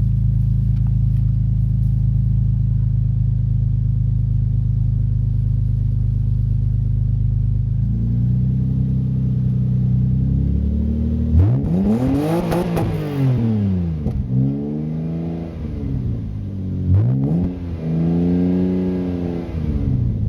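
1993 Toyota Supra's naturally aspirated inline-six, breathing through a 3-inch exhaust into a 4-inch muffler, idling steadily, then revved. About halfway through it climbs sharply and bounces off the rev limiter for a moment before dropping back, and then it is revved twice more near the end.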